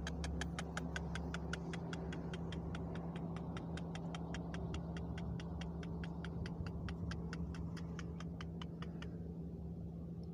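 A rapid, even ticking, about five ticks a second, that stops abruptly about nine seconds in, over a steady low hum.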